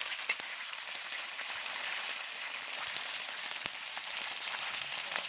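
Crickets frying in oil: a steady sizzle with scattered small crackles and pops.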